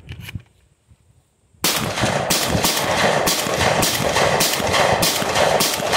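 Franchi Affinity 3 12-gauge semi-automatic shotgun fired rapidly, shot after shot at about three a second, starting suddenly about a second and a half in.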